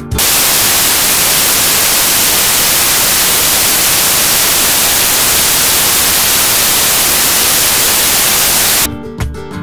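Loud, steady static hiss that cuts in suddenly, replacing the soundtrack, and cuts off near the end, where acoustic guitar music comes back.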